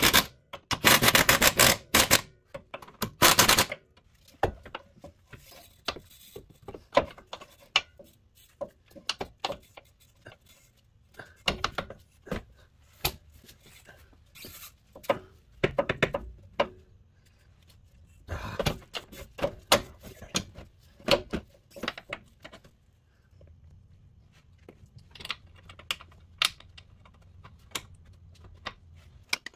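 Ratchet wrench clicking in quick runs as steering rack mounting bolts are driven in, followed by scattered clinks, knocks and scrapes of tools and metal parts handled under the car.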